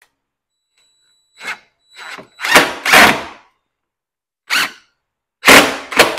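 Cordless DeWalt impact driver run in short trigger bursts, about seven of them, as it drives a bolt tight into the UTV's roof panel.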